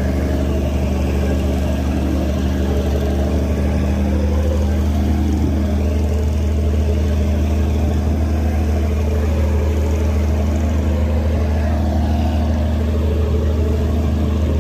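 Large river passenger boat's engine running steadily: a low, even hum that holds unchanged.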